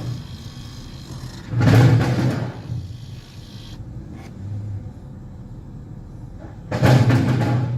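New aftermarket blend door actuator behind the dash of a 2008 Chevy Impala running twice, about a second each time, as the temperature control is moved. It is working normally with no ticking, over the steady hum of the running car and its blower.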